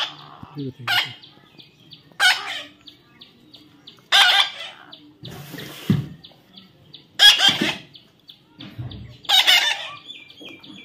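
Baby parrot giving short, harsh, loud calls, about six of them spaced one to three seconds apart.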